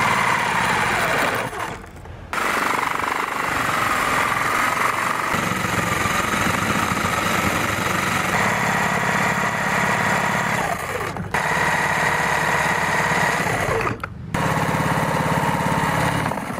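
Corded electric jigsaw running and cutting through a pine board, its motor and reciprocating blade going in long runs with three brief stops. The cut goes unusually hard for a jigsaw.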